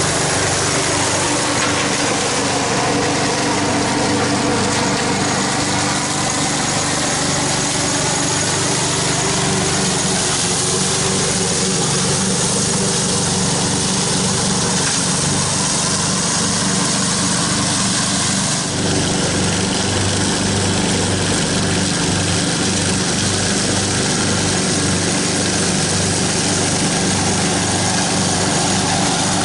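Craftsman riding lawn mower's engine running steadily as it mows through a thick layer of dry fallen leaves, chopping them up.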